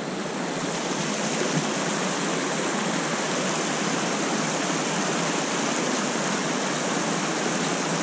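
Small rocky mountain brook rushing over rocks and little cascades, a steady rush of water that grows a little louder about half a second in.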